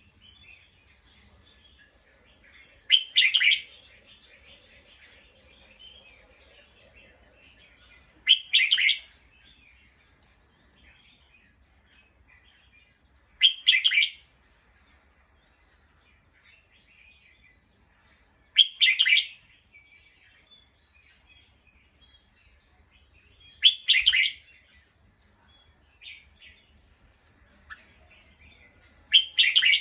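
Bulbul calls: a short chirping phrase of about a second, repeated six times at even intervals of about five seconds, with fainter chirps in between.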